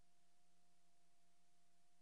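Near silence: only a faint steady hum and hiss, with no soundtrack.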